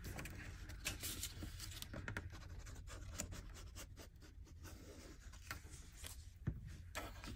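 Faint scratching and rustling of paper cardstock being handled and glued down, with a sharp tap near the end.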